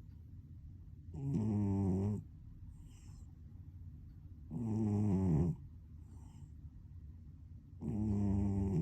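A sleeping cat snoring: three snores about three and a half seconds apart, each about a second long.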